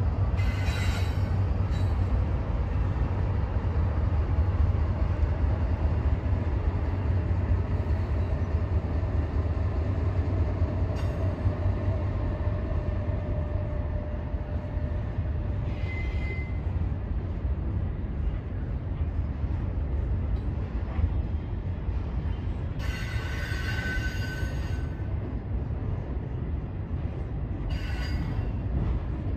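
Freight train of double-stack container cars rolling slowly across a railway bridge: a steady low rumble, with brief high wheel squeals at about 16 seconds, a longer, louder squeal around 23 to 25 seconds, and another near the end.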